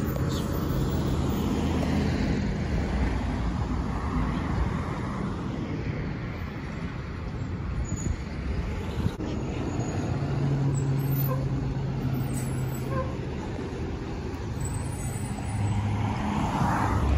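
Road traffic passing on a street: a shuttle van and a school bus drive by with their engines running, and a car passes close near the end with a swelling rush of tyre and engine noise.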